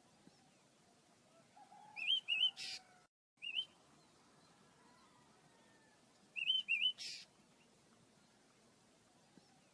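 Pet bird calling: a short phrase of two or three quick, looping chirps, heard twice about four seconds apart.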